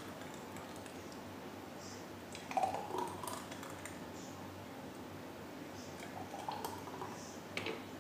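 Faint pouring of a thick blended fruit-and-milk shake from a blender jar into glasses, with a few soft clicks and ticks.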